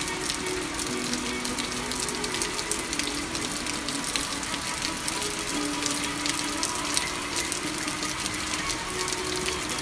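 Steady rushing, crackling water-like noise, such as surf and splashing, with faint held music notes underneath that change pitch every second or two.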